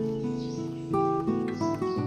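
Background music: a plucked acoustic guitar playing a gentle run of single notes.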